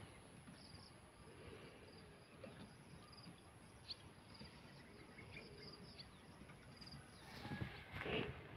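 Faint outdoor ambience of insects: a steady high-pitched drone with short, high chirping trills repeating every second or so. Near the end, louder rustling and thuds of footsteps through grass.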